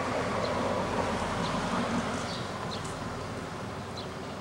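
Steady background noise, a hiss with a low rumble, with a few faint short chirps.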